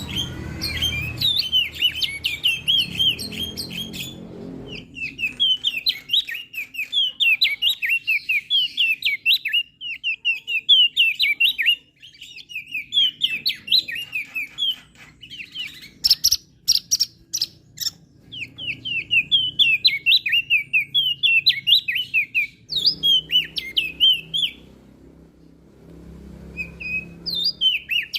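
Opior jambul (crested white-eye) singing a rapid, warbling song of quick high chirps in phrases of a few seconds, with short pauses between them. Several sharp, high ticks come about midway.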